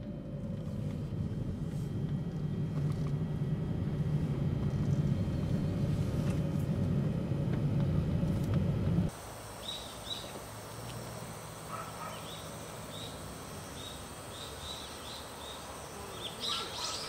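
Car driving slowly along a narrow road, heard from inside the cabin: a low engine and tyre rumble that grows louder. About nine seconds in it cuts off suddenly and gives way to a quieter outdoor scene with short bird chirps and a steady high whine.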